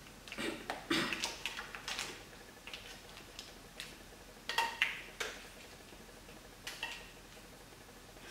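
Cooking chopsticks clicking and scraping against a wok while food is pushed out onto a plate, in a few irregular clusters of light knocks, with a brief metallic ring about four and a half seconds in.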